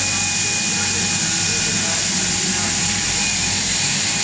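Plastic tube extrusion line running: a steady machine drone with a low hum and two thin, constant whining tones from the extruder drive and pumps.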